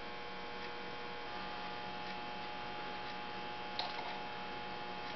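Steady electrical hum made of several fixed tones, with one faint click about four seconds in.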